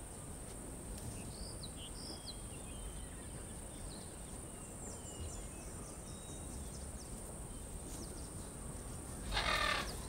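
Outdoor ambience in trees: a few faint, short, high bird chirps over a steady high thin whine. A single short, harsh squawk comes a little before the end.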